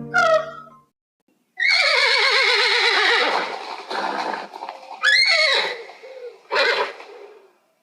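An animal calling: one long, loud, quavering call that falls in pitch, then two shorter calls.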